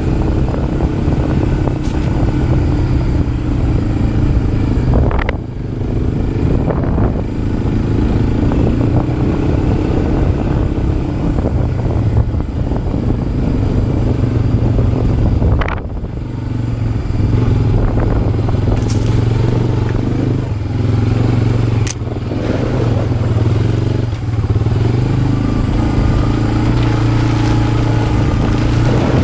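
ATV engine running under way, the throttle eased off briefly and opened again several times, with a few sharp clicks.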